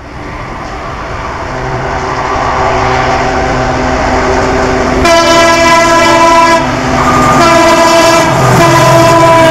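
Indian Railways diesel locomotive hauling a passenger train at speed, its engine and wheel noise growing louder as it approaches. About halfway through, its multi-tone air horn starts sounding in a series of long blasts.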